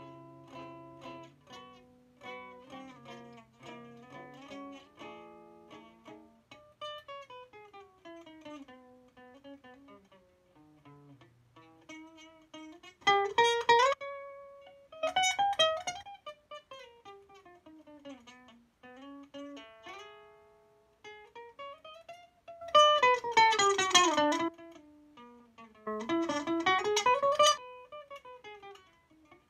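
Acoustic guitar with a capo played solo: single-note melodic runs climbing and falling, broken by louder passages of rapid strumming about halfway through and twice more near the end.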